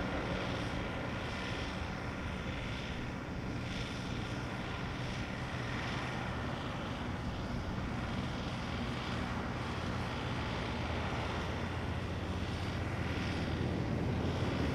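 Jet airliner engines running steadily.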